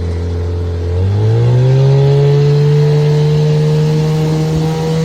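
1970 Chrysler 10 hp two-stroke outboard motor running. About a second in it is throttled up: the pitch rises quickly, then holds steady at the higher speed.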